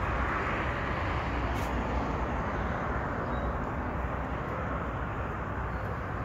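Steady rumble and hiss of idling truck engines, with a few faint clicks.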